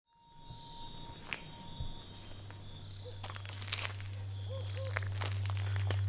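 Night-time insect chorus: a steady high-pitched trill of crickets fading in, with scattered short clicks and chirps. A low steady drone comes in about two seconds in.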